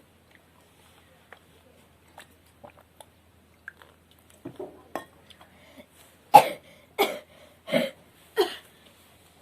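A person coughing four times in quick succession, short harsh coughs starting about six seconds in, after a few faint clicks and small sounds.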